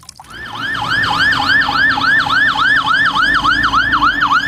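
Toy fire truck's electronic siren, a fast warbling wail that swoops up and down about four times a second, rising in level just after the start.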